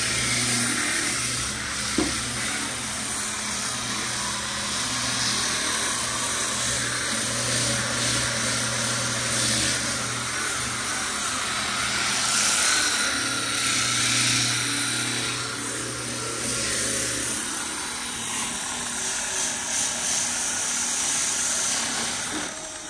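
Handheld power sander with a round pad running steadily against the car's steel roof, grinding the old paint off toward bare metal.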